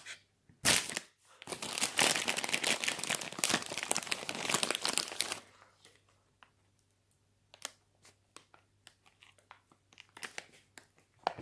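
Plastic marshmallow bag crinkling and rustling for about four seconds as it is handled, then a few faint scattered clicks.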